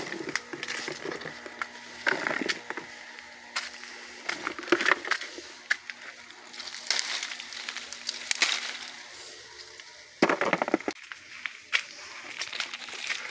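Leafy branches rustling and dry leaves and twigs crunching and snapping as someone pushes through coffee shrubs on foot. It comes in irregular crackling bursts, the loudest about ten seconds in.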